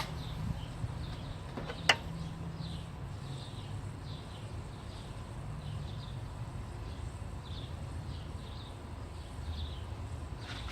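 Birds chirping in short, repeated downward-sliding calls over a steady low hum, with one sharp click about two seconds in, the loudest sound.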